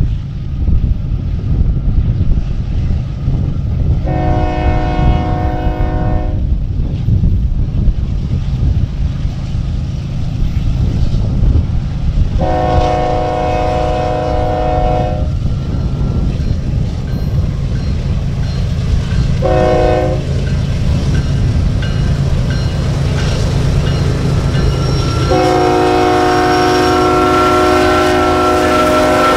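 BNSF coal train's diesel locomotive air horn blowing the grade-crossing signal: two long blasts, a short one, then a long one, sounding a multi-note chord. Under it runs a steady low rumble of the train and wind on the microphone.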